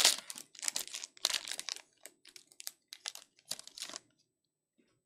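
Foil wrapper of a Donruss basketball card pack being torn open, a dense crackling loudest in the first second or two. Lighter crinkling and rustling follow as the cards are slid out, stopping about four seconds in.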